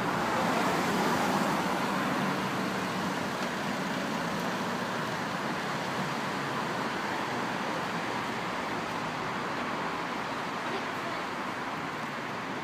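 Steady hum of road traffic from a busy street, an even noise without distinct events that slowly fades.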